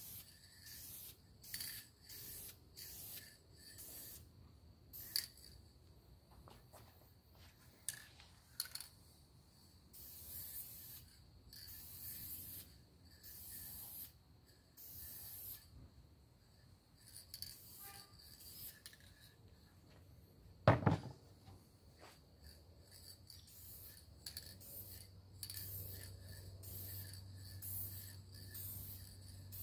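Aerosol spray can of clear satin lacquer hissing in many short bursts, one after another, as coats are sprayed onto wood. A single sharp knock about two-thirds of the way through is the loudest sound, and a low steady hum comes in near the end.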